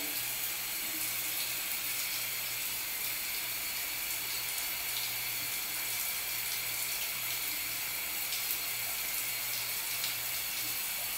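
Shower water running steadily, an even hiss of spray.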